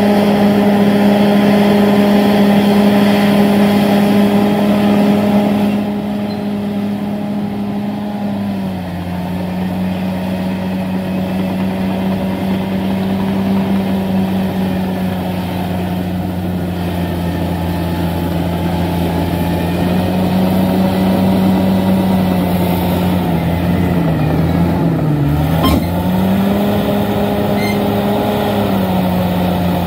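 Bulldozer's diesel engine running steadily, its pitch dropping about a third of the way in as it takes load, wavering briefly later on, and rising back up near the end.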